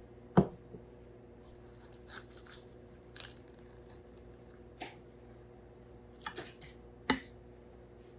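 A few sharp knocks and brief rustling handling sounds, the loudest knock about half a second in and another near the end, over a steady low hum.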